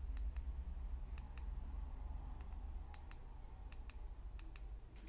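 Keypad buttons of a ZTE feature phone clicking as they are pressed to step through menus: about ten short, sharp clicks, mostly in close pairs, over a low steady hum.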